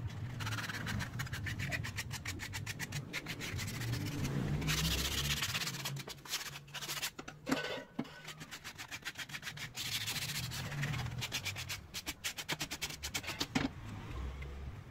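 Sandpaper rubbed by hand along the edge of a cut wooden crossbow part, in quick back-and-forth strokes of about five a second, broken by a few short pauses.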